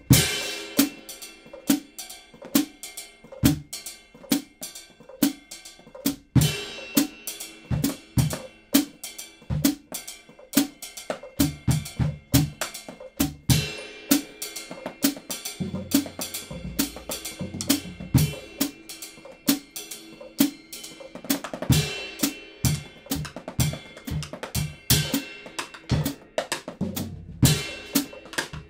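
Acoustic drum kit played solo: a busy, syncopated groove of kick drum, snare, toms and hi-hat, with cymbal crashes several times.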